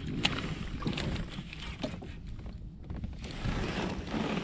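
Low steady rumble of wind and water around a fishing kayak, with a few light clicks and knocks from gear being handled on board.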